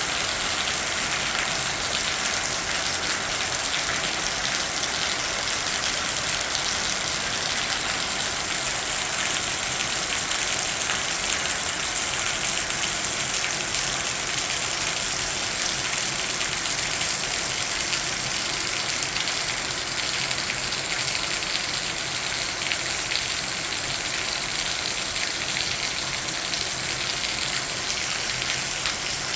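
Steady, unbroken rush of water with a hissing, high-pitched character.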